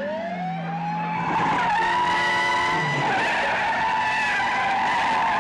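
Tyres screeching as cars skid and slew across the road, over a police siren that winds up over the first second and then holds a steady high wail.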